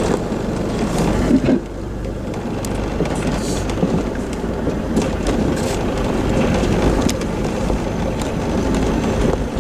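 Off-road 4x4 vehicle driving slowly over a rough dirt track, with a steady engine and road rumble and frequent knocks and rattles as it bumps along. A loud thump comes about a second and a half in.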